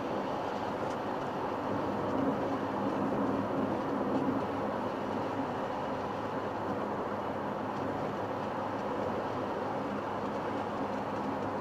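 Steady driving noise inside a moving car's cabin: tyre and road rumble and wind, with a low engine hum.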